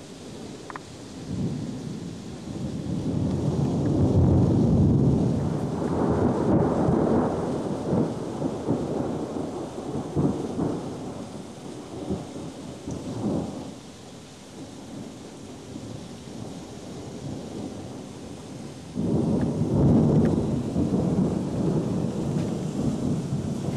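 Thunder: a long rolling peal that builds over the first few seconds and dies away by about the middle, then a second clap breaks in sharply near the end and keeps rumbling. Rain falls steadily underneath.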